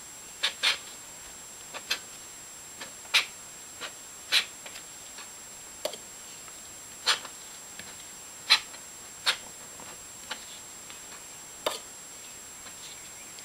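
Dip pen with a ball-pointed nib drawing letters on paper: short, sharp taps and scratches at irregular intervals, about fifteen of them.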